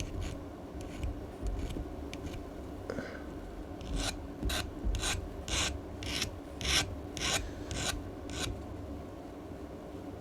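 Hand file rasping across the edge of a tin-plated copper terminal, deburring it so the mating face is smooth and flat. A few light strokes, then about nine firm, even strokes at roughly two a second, stopping near the end.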